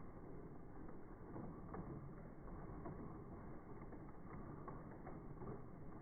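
A thin stream of coffee drink pouring into a tall glass, played back in slow motion so it comes out as a faint, deep, blurred rumble with scattered soft ticks.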